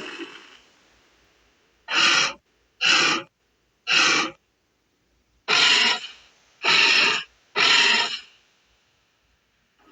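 Saurophaganax dinosaur creature sound effect: a series of six harsh, breathy calls, three short ones about a second apart, then three slightly longer ones. The first second holds the fading end of a longer call.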